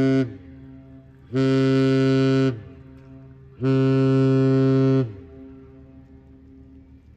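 A Great Lakes freighter's deep ship horn sounds a salute: a long blast cuts off just after the start, then two shorter blasts follow, each about a second long, with an echo trailing after each one.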